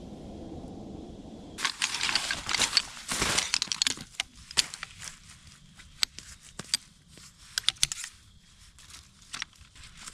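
A low rushing noise for about a second and a half, then close crinkling and rustling of handled material with many sharp clicks and taps, busiest for the first couple of seconds and then thinning to scattered clicks.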